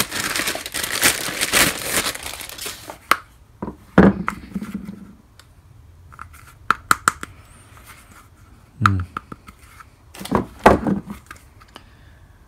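Clear plastic bag crinkling and rustling for about the first three seconds as a compressor wheel is pulled out of it. After that come scattered clicks and light knocks as the polypropylene wheel with its rubber tyre is handled and turned over.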